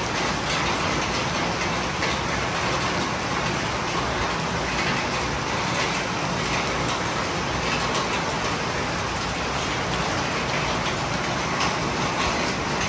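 Steady rainfall: a dense, even hiss with faint scattered taps of drops.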